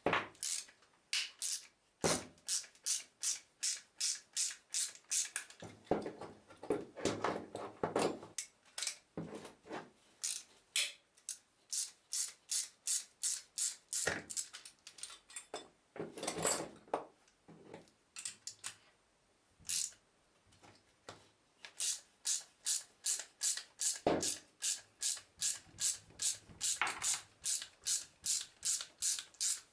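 Runs of sharp metallic clicks, about two or three a second with short pauses, from hand tools working on the armature of a vacuum cleaner motor while its 608 ball bearings are pulled off and replaced.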